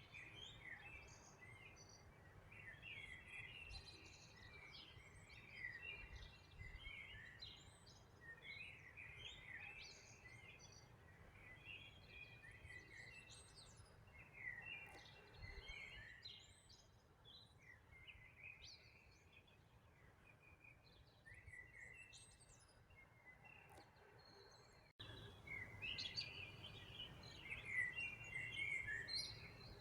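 A chorus of small birds chirping and twittering, many short overlapping calls, faint over a low background rumble. Near the end the sound cuts abruptly and the chorus comes back louder.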